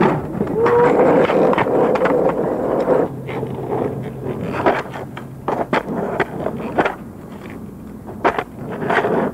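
Skateboard wheels rolling and grinding over concrete for the first few seconds, then rolling on asphalt with repeated sharp clacks as the board's tail and wheels hit the ground during freestyle flatland tricks.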